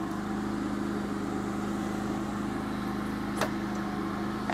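Portable generator running steadily in full-power mode (eco mode off), with the compressor's water-cooling pump circulating water, a constant hum echoing in a metal shed. A sharp click about three and a half seconds in and another at the end.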